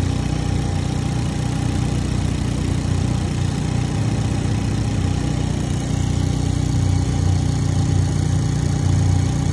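Brand-new replacement engine in a Hyundai Veloster N idling steadily under the open hood on its first run after installation.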